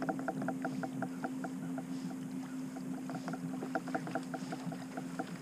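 Fishing reel being cranked to retrieve a jerkbait: a quick, even run of clicking ticks that stops and starts briefly, over a steady low hum.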